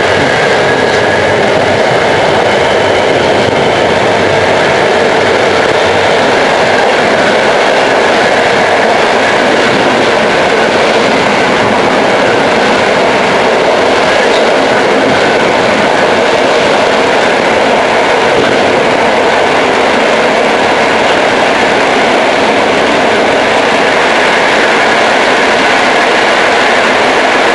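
ČD class 460 electric multiple unit running at speed, heard from inside the carriage: a loud, steady rush of running noise with no let-up. A faint high whine shows in the first couple of seconds.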